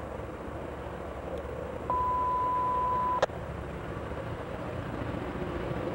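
A single electronic beep, one steady tone held for about a second and a half that cuts off with a click, over a steady background rumble and hiss.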